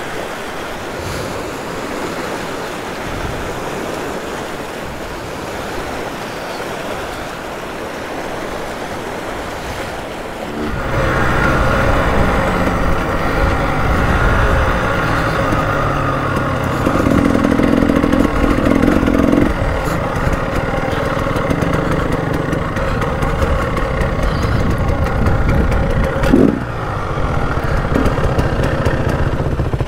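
Floodwater rushing over a river crossing, an even roar of water. About ten seconds in it gives way to a dirt bike's engine running under load as it climbs a grassy track, its pitch stepping up and down with the throttle and gears.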